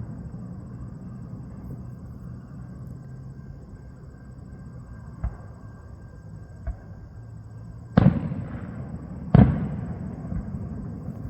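Aerial fireworks shells bursting: two small pops, then two loud booms about a second and a half apart, each echoing away, over a steady low hum.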